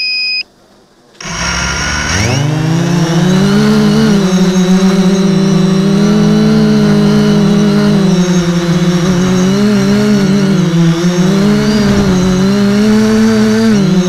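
A short electronic beep, then about a second in a radio-controlled multicopter's electric motors and propellers spin up with a rising whine and settle into a steady hum that wavers in pitch as it flies, heard from the craft's own camera.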